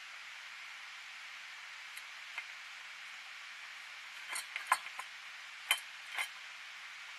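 Cat eating from a stainless steel bowl, with a few light clinks against the metal bowl about two-thirds of the way through, over a steady hiss.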